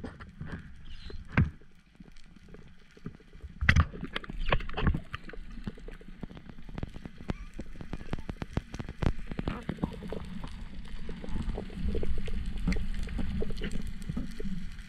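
Underwater sound picked up by the camera in its housing just below the surface: a low wash of moving water under a constant scatter of sharp clicks and crackles, with a few louder knocks about one and a half, four and five seconds in.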